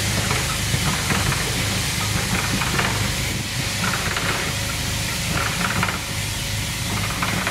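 Heritage train passing slowly: a steady low drone with a hiss over it, and intermittent clicks and rattles.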